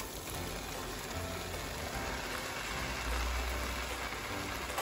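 Onion-tomato curry masala frying in a pan with a steady sizzle as chopped button mushrooms are tipped in.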